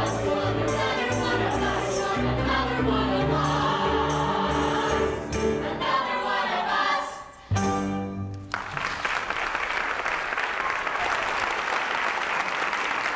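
Cast of a stage musical singing the end of an ensemble number with accompaniment, closing on a short final chord about eight seconds in, followed by audience applause that fades out near the end.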